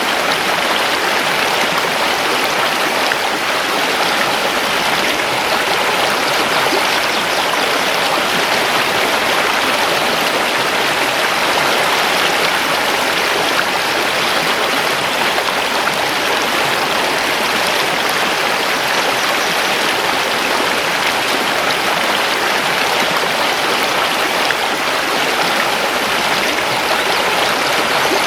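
Mountain river flowing over stones: a steady, even rush of water that holds without change.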